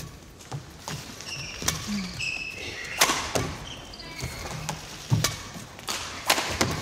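Badminton rally: sharp racket strikes on the shuttlecock and footfalls on the court, with short shoe squeaks on the court surface between them.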